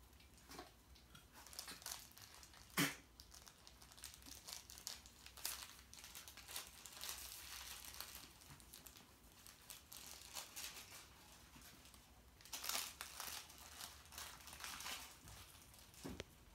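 Goldendoodle puppies chewing and tugging plush dog toys: faint, irregular crackling of the crinkle filling inside the toys, with one sharp click about three seconds in and a busier spell of crinkling near the end.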